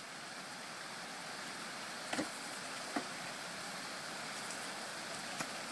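Steady faint hiss of outdoor background noise, with a couple of soft ticks about two and three seconds in.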